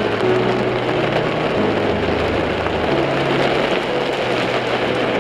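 Heavy rain beating on a car's windshield, heard from inside the car as a dense, steady hiss of drops.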